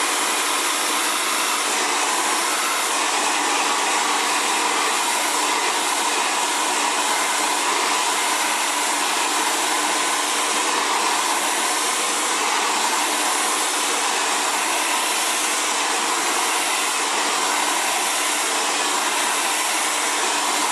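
Xtava Allure 2200-watt ionic ceramic hair dryer running continuously while blow-drying curly hair: a steady rush of air over an even motor hum.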